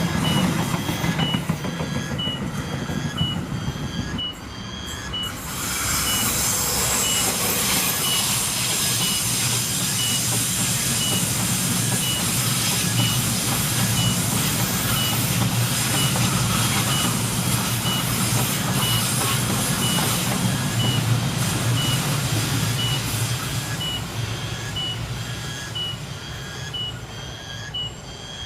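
A train running past on the curving line: a steady rumble and rush of wheels on rail that swells about five seconds in and eases off near the end. Throughout, a short high beep repeats evenly, a little more than once a second.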